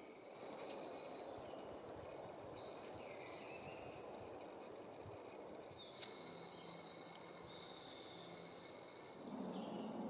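Woodland birds singing: short trilled and repeated high phrases overlapping at different pitches, over a faint steady background hiss.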